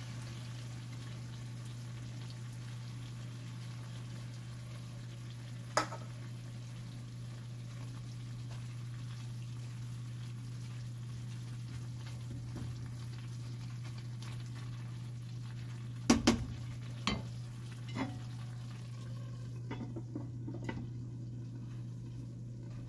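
Vegetables and sausage sizzling steadily in a wok over a gas flame while being stirred with a spatula. A single sharp knock about six seconds in, a cluster of knocks of utensil on the pan after the middle, and lighter clinks near the end as a glass lid goes on.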